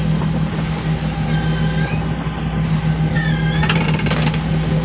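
Fishing boat's engine running steadily with a constant low hum, over churning water beside the hull. A few brief clanks come about four seconds in.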